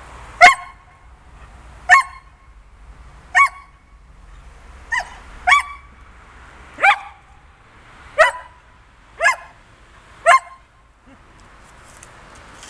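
Rough collie barking: nine single sharp barks about every second and a half, with a quick pair near the middle, then stopping. These are the barks of a dog asking for its stick to be thrown to fetch.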